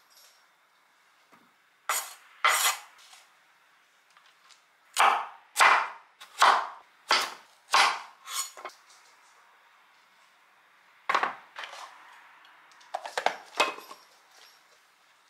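Kitchen knife chopping a carrot into rounds on a wooden cutting board: single sharp knocks, a quick run of about seven in the middle. A short cluster of knocks and clicks near the end as a lid is pressed onto a bowl.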